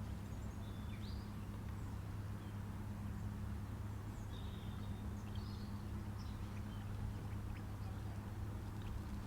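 Small boat's outboard motor running steadily at low speed, a constant low hum, with a few brief bird chirps over it about a second in and again mid-way.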